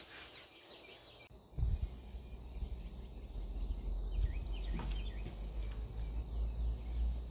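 Birds chirping in short calls over outdoor ambience with insects. From about a second and a half in, a steady low rumble comes in underneath.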